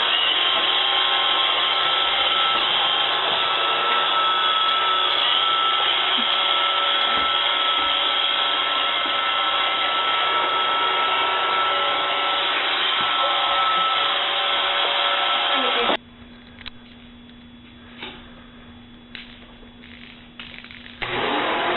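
A household appliance's electric motor and fan running steadily with a high whine. About 16 seconds in it cuts off, leaving a quieter low hum with a few clicks, and the loud running starts again near the end.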